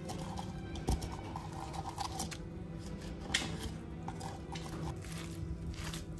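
Kitchen utensils clinking and knocking against a bowl during food prep, with two sharper knocks about a second and three seconds in, over soft background music.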